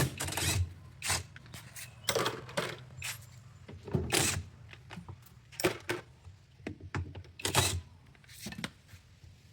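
Irregular clattering knocks and scrapes, about a dozen in a few seconds, from hands-on work on a washing machine's parts.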